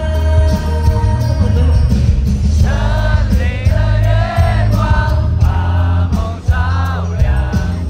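A pop song with heavy bass and sustained keyboard chords; a sung vocal melody comes in about two and a half seconds in.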